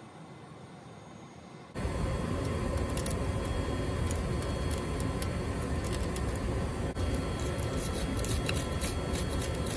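A screwdriver and then a wire brush scrape and click against the threads of a steel compression fitting, clearing off old Teflon tape, over a loud, steady rush of wind. The loud noise starts abruptly about two seconds in, and the scraping clicks grow denser near the end.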